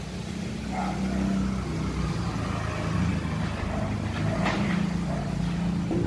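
Steady low engine hum of a motor vehicle running, with a brief rattle about four and a half seconds in.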